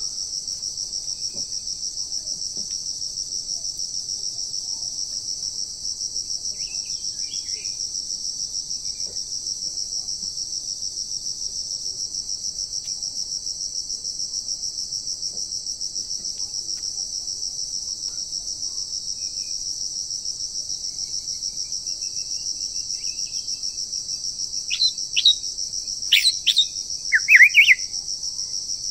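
Steady, shrill insect chorus with a fast, even pulse. Near the end a few short, sharp rising bird calls break in over it.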